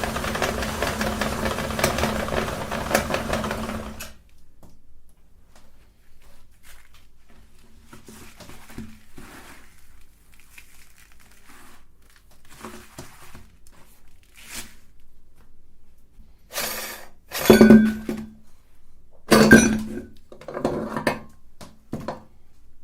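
Meat grinder running with a steady hum, cutting off suddenly about four seconds in. Then come scattered clinks and knocks of parts being handled, with two louder clunks near the end.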